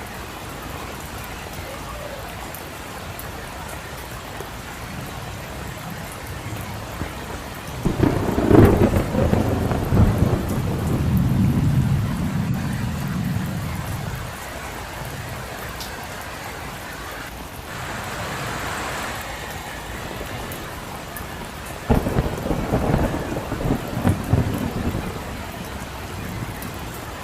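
Steady rain falling, with two peals of thunder: a sudden crack about eight seconds in that rumbles on for several seconds, and a shorter one later.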